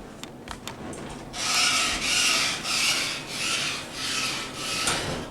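Elevator door scraping as it slides in its track. There is a run of about six rasping strokes, each about 0.6 s apart, starting about a second in.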